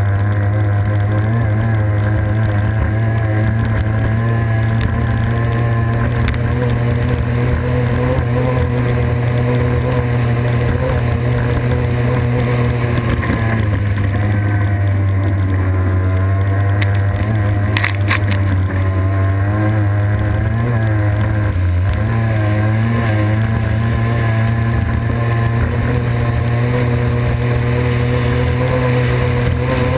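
Racing boat's engine running hard at a steady high speed, heard close up, over a hiss of rushing water and wind. Its pitch dips and wavers for several seconds around the middle before settling again, with a couple of faint clicks in the middle.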